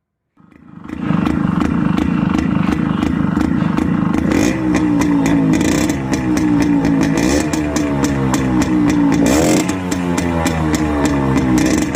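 Suzuki Max 100's two-stroke single-cylinder engine, fitted with an aftermarket silencer, running with brief throttle blips. It cuts in sharply about half a second in, and the revs rise and fall about four and a half, six and nine and a half seconds in.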